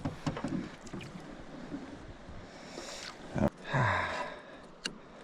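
Handling noises in a small fishing boat over a low background hiss: a sharp knock about three and a half seconds in, followed at once by a brief rushing noise and then a single click.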